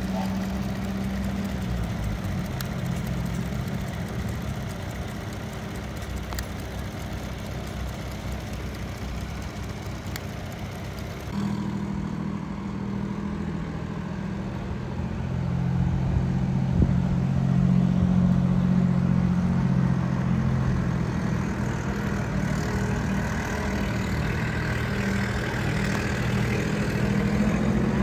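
Vintage tractor engines running at idle, a steady low engine note. About eleven seconds in the sound changes abruptly to a different, steadier engine note, which grows louder from about fifteen seconds.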